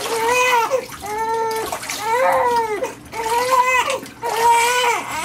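Newborn baby crying in short repeated wails, about one a second, while water splashes in a steel basin as its hair is rinsed.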